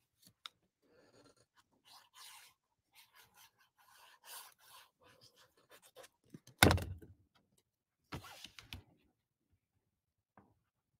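Cardstock being handled on a craft table: soft paper rustles and scrapes, a single loud thump about two-thirds of the way through, then more rustling as a card layer is pressed down.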